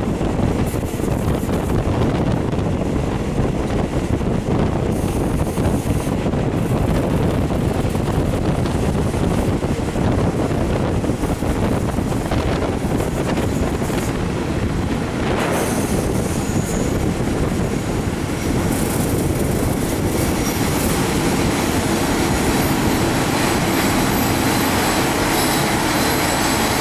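Passenger train running, heard from inside the carriage: a steady rumble of wheels on the rails, turning brighter and hissier from about twenty seconds in.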